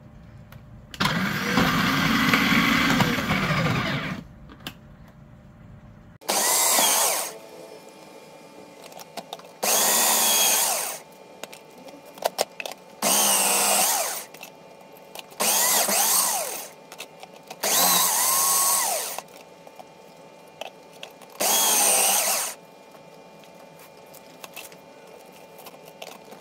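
A 700-watt food processor grating vegetables: the motor runs for about three seconds, then in six short pulses of about a second each, a few seconds apart, each with a whine.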